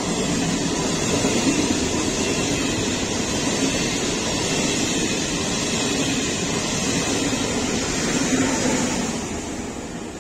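Electric regional passenger train passing through a station at speed without stopping: a steady rush of wheels on rails and air, swelling in at the start and dying away near the end.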